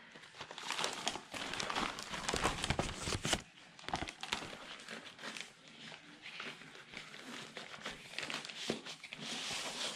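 Large clear plastic zip-top bag crinkling and rustling, with paper sheets and sticker sheets sliding and shuffling as they are pulled out of it: many small irregular crackles, loudest in the first few seconds and softer through the middle.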